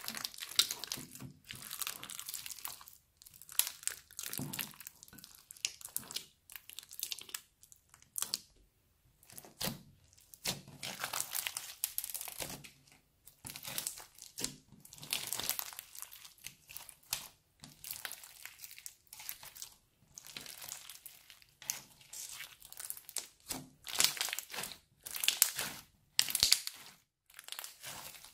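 Crunchy slime full of small beads being kneaded and squeezed by hand, crackling and squishing in irregular bursts with short pauses between squeezes.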